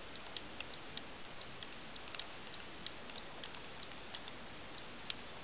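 Canon AE-1's rewind crank being turned slowly, with faint, irregular ticking at about four ticks a second as the exposed film is wound back into its cassette.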